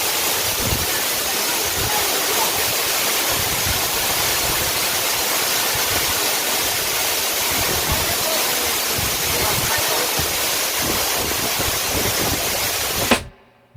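Waterfall: a steady rush of falling and splashing water that cuts off abruptly near the end.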